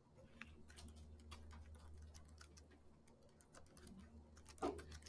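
Faint typing on a computer keyboard, irregular keystrokes, with one louder knock near the end.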